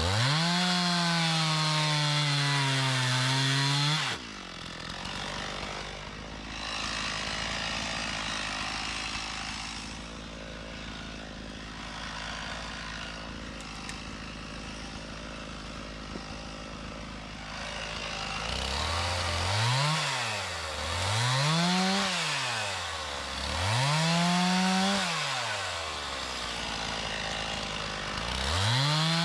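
Stihl MS 391 two-stroke chainsaw at full throttle for about four seconds, its pitch sagging as it bucks through wood, then dropping to idle. After a long idle it is revved up and down three times, and it goes back to full throttle near the end.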